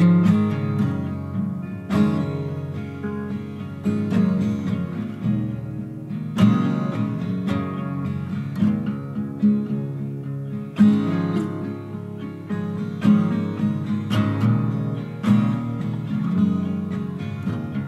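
Background music: acoustic guitar, plucked notes and strums ringing on, with a stronger strum every couple of seconds.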